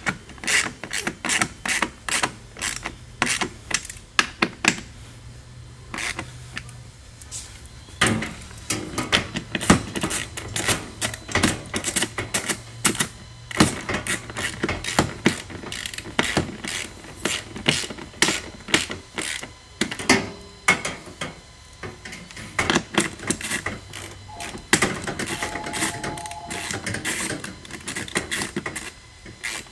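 Hand ratchet wrench clicking in quick runs with short pauses, tightening small quarter-20 bolts.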